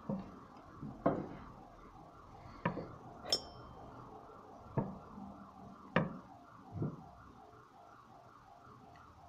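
Light clicks and metallic clinks of small tools and watch parts handled on a watchmaker's bench, about seven in the first seven seconds; the one a little over three seconds in rings briefly. A faint warbling tone repeats in the background throughout.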